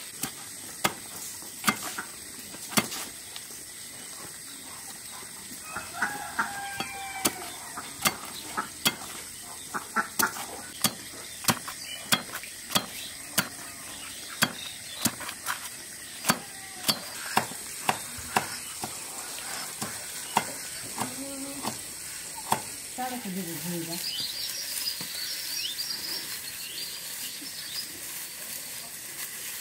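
Irregular sharp knocks of a curved hand blade chopping on a wooden block, about one or two a second, which stop about three-quarters of the way through. Birds chirp near the end.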